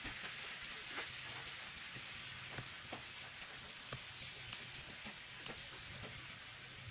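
Kitchen scissors snipping through grilled steak, heard as a scattering of faint sharp clicks, over a steady background hiss.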